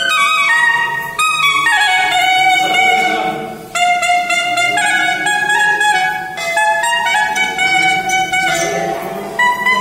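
Solo clarinet playing a melody of quick stepping notes, with short pauses about a second in and just before four seconds.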